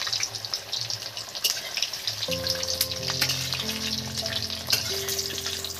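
Large potato pieces deep-frying in hot mustard oil, a steady crackling sizzle with many small pops.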